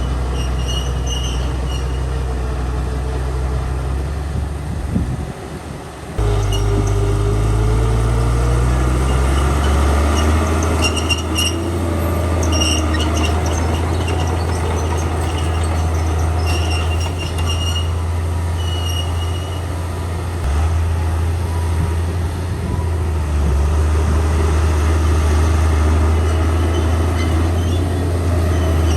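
Komatsu D41P crawler bulldozer working: the diesel engine runs low and steady, and the steel tracks give short high-pitched squeals again and again. The sound dips briefly about five seconds in, then picks up again.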